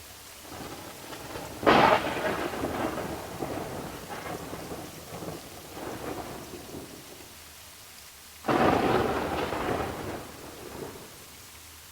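Two claps of thunder in a rainstorm, the first about two seconds in and the second a little past eight seconds, each starting suddenly and rumbling away over a few seconds above steady rain.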